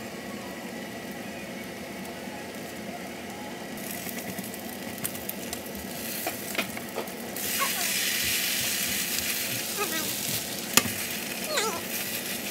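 Seafood pancake batter sizzling in a frying pan, with a slotted metal spatula scraping and clicking against the pan. The sizzle grows much louder about halfway through, as the pancake is turned over onto its other side.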